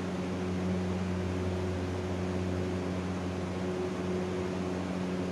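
Steady low electrical hum with a constant hiss underneath, unchanging throughout.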